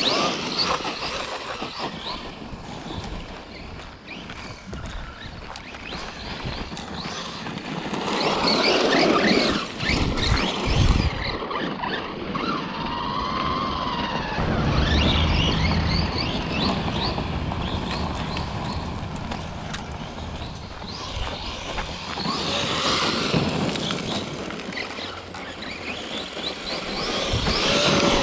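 Traxxas Rustler RC truck with a Velineon 3500 kV brushless motor driving over gravel and grass. The motor whine rises and falls with the throttle over a steady noise of tyres on gravel, with louder surges of hard acceleration about a second in and around eight to eleven seconds.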